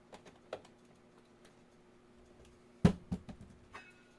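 Light clicks and taps of cookware and utensils being handled in a kitchen, with one sharper knock a little under three seconds in and a few smaller taps after it, over a faint steady low hum.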